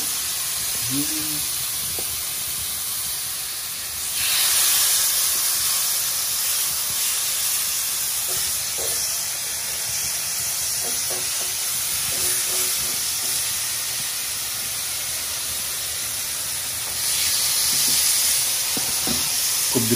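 Seasoned chicken breast fillets sizzling on a hot, oiled cast-iron griddle over a wood fire: a steady hiss that swells louder about four seconds in and again near the end as more fillets go down. A few faint knocks come from the fork against the griddle.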